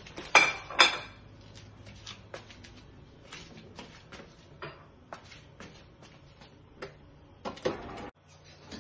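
Crushed ice from a refrigerator's door dispenser clattering onto a plate in two short loud bursts near the start and in another cluster near the end, with scattered light clicks and knocks between.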